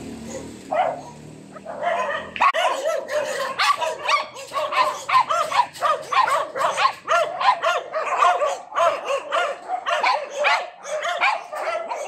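Small dog yapping: one bark just under a second in, then a fast, unbroken run of high, sharp barks, several a second.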